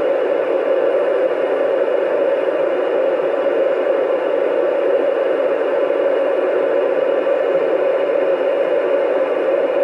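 Steady static hiss from a ham radio transceiver's speaker, open squelch with no station coming through, while it listens on the International Space Station's FM frequency during a pass.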